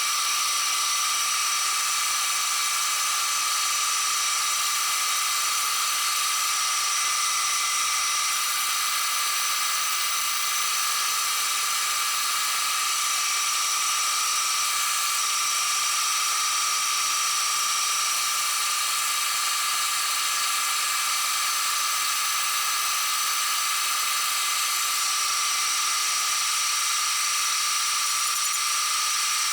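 Milling machine running steadily under cut, a constant high whine with hiss as it machines steel welds flat.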